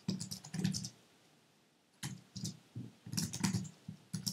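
Typing on a computer keyboard: a quick run of key clicks, a pause of about a second, then another run of keystrokes.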